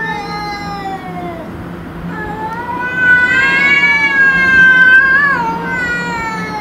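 Cats yowling at each other in a territorial standoff: long, drawn-out wails. One falls in pitch at the start, then a louder, higher yowl rises about two seconds in and holds for about three seconds, wavering before it falls away.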